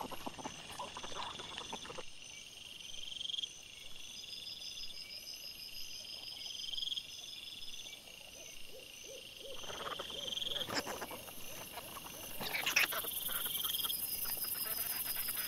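Wild boar and piglets rooting, snuffling and grunting close by, with a quieter stretch in the middle. A high, steady pulsing chirr runs underneath throughout.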